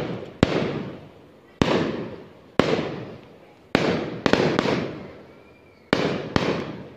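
Aerial fireworks bursting overhead one after another, about eight sharp bangs in a row, a few close together near the middle, each followed by a rumbling echo that dies away over about a second.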